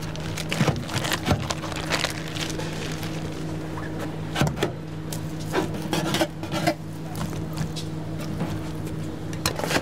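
Scattered knocks, clicks and clatter of food and steel trays being handled at a food stall, over a steady low hum.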